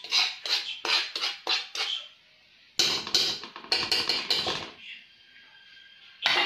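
A metal spoon scraping and stirring a small pool of syrup across the bottom of a metal wok: a run of quick scrapes at about three a second, a short pause, then another flurry of scrapes.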